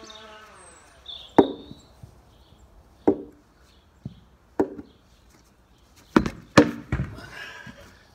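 Hollow knocks of a plastic toy cricket bat being struck, about six times at uneven intervals, each with a short ring; the last three come close together near the end.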